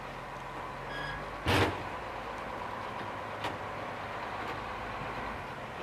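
An engine running with a steady low hum. About a second in there is a short high tone, and just after it comes a single loud knock, followed later by a faint click.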